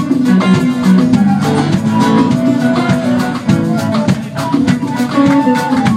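Live band playing Latin-flavoured music: guitar, drums and a flute carrying held melody notes.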